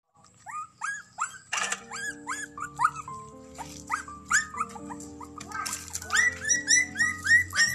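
Puppies whimpering and yipping over and over in short, high, rising cries, over background music with long held notes.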